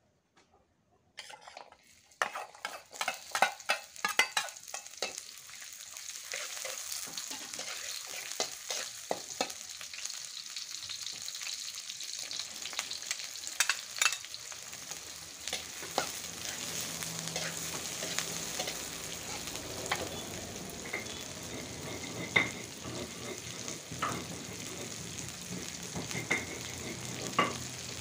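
Sliced onion and shallots frying in hot oil in an aluminium wok: a burst of sharp crackling about a second in, settling into a steady sizzle, with a metal spatula now and then scraping and knocking against the wok.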